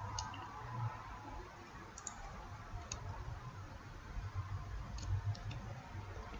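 A few sparse, faint computer keyboard and mouse clicks over a low steady background hum.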